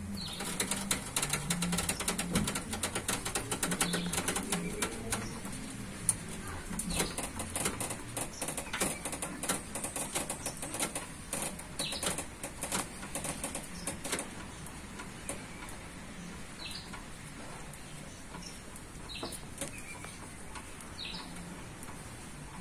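Multi-stage scissor jack being cranked up under the weight of a vehicle: a dense run of rapid clicks from the bar turning the drive screw, thinning out after about fourteen seconds.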